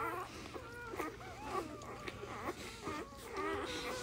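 Newborn golden retriever puppies squeaking and whimpering: many short, thin calls that waver in pitch and overlap one another.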